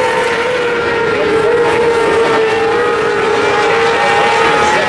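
Winged 600cc micro sprint cars running laps on a dirt oval, their motorcycle engines making a continuous loud drone whose pitch wavers slightly.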